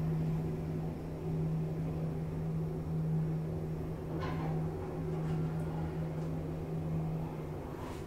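KONE MonoSpace lift car travelling down one floor, with a steady low hum from the car in motion that stops near the end as the car comes to rest. A brief faint higher tone sounds about halfway.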